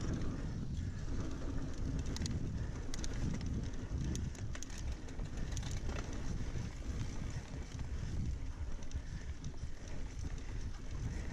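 Mountain bike rolling fast down a dirt singletrack: wind buffeting the microphone over tyre rumble, with a few sharp clicks and rattles from the bike over the first half.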